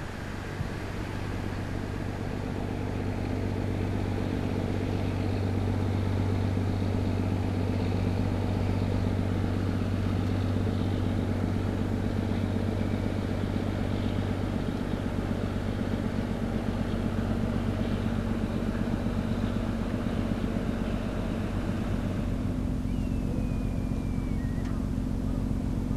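Diesel engine of a fishing boat running past, a steady low drone that grows over the first few seconds and then holds. Gulls call several times near the end.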